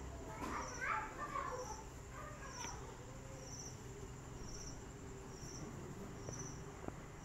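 Cricket chirping at night, short high-pitched chirps repeating evenly about once a second. A brief unclear mid-pitched sound comes in the first second or two.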